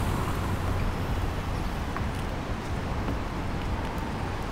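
Steady downtown traffic noise, an even wash of sound with a low rumble underneath.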